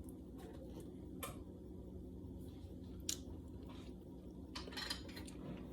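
A table knife scraping and tapping faintly while jelly is spread on toast: a few short scrapes and clicks, a little over a second in, about three seconds in and near the end, over a steady low hum.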